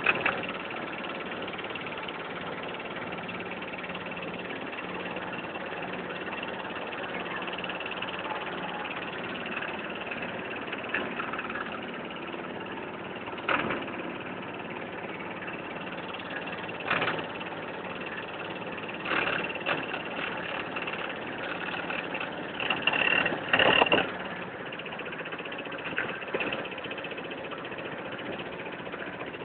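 Motorboat engine running steadily as the boat cruises, with a few brief louder bursts in the second half.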